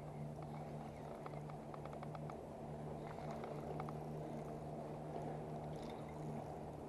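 Fishing reel being wound in while playing a hooked fish, giving light clicks that are thickest in the first two seconds, over a steady low hum.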